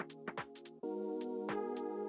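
Background electronic music: sustained synthesizer chords over a steady drum-machine beat, changing chord about a second in.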